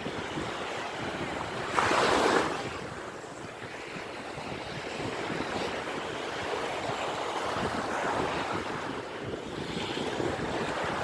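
Surf washing on the shore, with wind buffeting the microphone; a brief louder rush comes about two seconds in.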